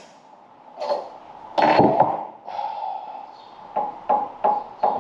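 Hammer blows on a drift, driving a worn, peened steel door hinge pin out of its hinge: two heavy strikes in the first two seconds, then a run of lighter, quicker taps near the end.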